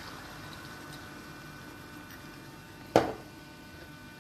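White wine simmering around veal steaks in a frying pan, a faint steady hiss that slowly dies down, with one sharp knock about three seconds in.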